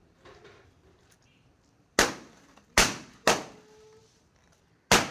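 Water-filled balloons popping: four sharp pops, the first about two seconds in, two more close together within the next second and a half, and the last near the end, each trailing off briefly.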